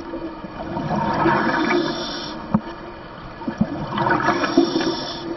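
Scuba diver's exhaled bubbles rushing out of the regulator underwater, two breaths a couple of seconds apart, over a steady low hum.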